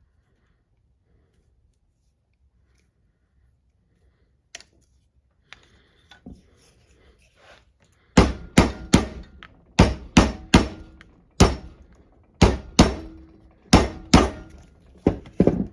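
Mallet tapping an old pocket knife to tighten it where it has worked loose. About a dozen sharp strikes come in quick twos and threes, each with a short metallic ring, after a few seconds of light handling clicks.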